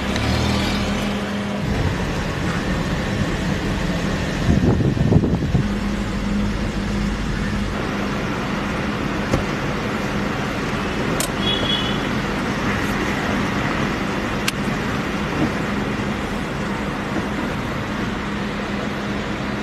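A car running, with road and traffic noise: a steady engine hum, a louder rush about five seconds in, and a few short clicks later on.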